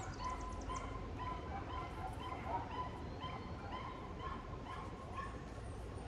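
A dog barking in a quick series of short yips, about two a second.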